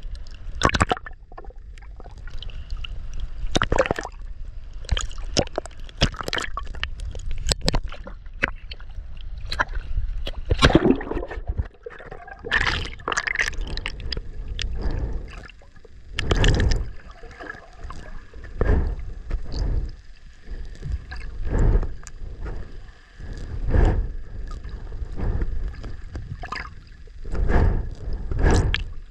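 Ocean water sloshing and gurgling against a handheld waterproof camera at the surface and underwater, with irregular splashes at first and surges about every two seconds in the second half.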